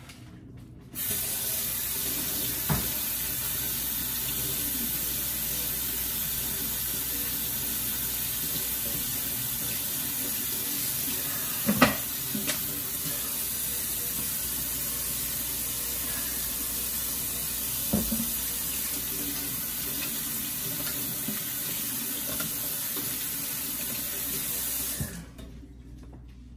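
Kitchen faucet running into a stainless steel sink, turned on about a second in and shut off near the end, with a few light knocks in between.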